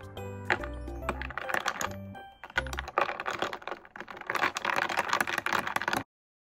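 Metal spoon stirring dalgona coffee over iced milk in a glass tumbler, clicking against the glass and the ice cubes, over background music with a bass line. Everything cuts off suddenly about six seconds in.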